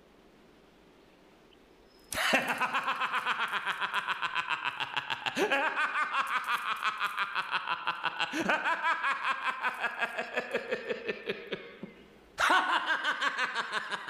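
A man laughing loudly from about two seconds in: a rapid ha-ha-ha in four long breaths, each starting high and falling in pitch.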